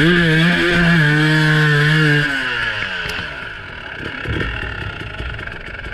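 Two-stroke dirt bike engine revved hard: it climbs sharply to high revs, holds there for about two seconds, then the revs fall away.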